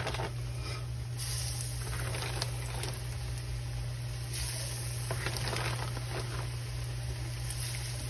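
Hogfish strips frying in hot grease: a steady sizzle with scattered small crackles. A steady low hum runs underneath.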